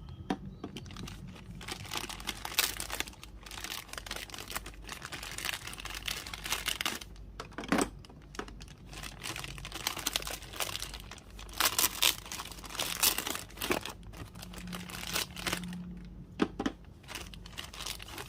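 Plastic packaging crinkling and rustling, with irregular tearing and sharp clicks, as toy parts are unwrapped by hand.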